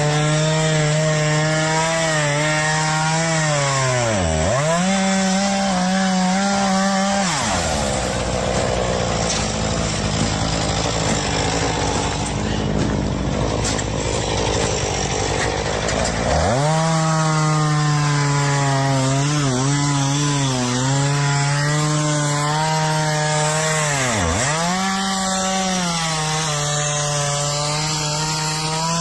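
A motor running at high speed, its pitch dropping sharply and recovering several times as if under load, with a rougher noisy stretch in the middle.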